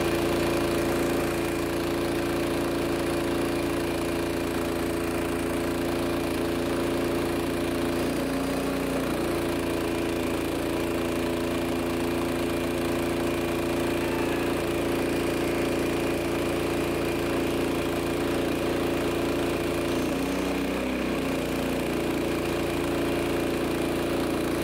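Gas engine driving the truck's water pump, running steadily under load while it supplies a fire hose. The engine note dips briefly twice, about 8 seconds in and again about 20 seconds in.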